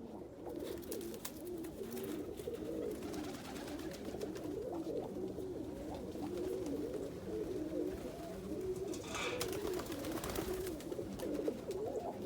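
Roller pigeons cooing steadily, several birds' wavering coos overlapping, with a brief rustle about nine seconds in.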